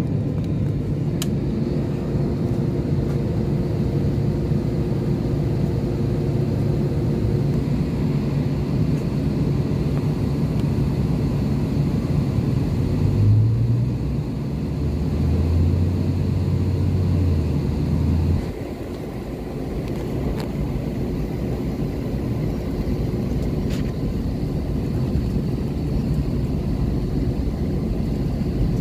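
Steady engine hum and rumble of an airliner heard from inside the cabin as it taxis. A deeper drone swells about halfway through and cuts off suddenly about two-thirds of the way in, leaving the sound a little quieter.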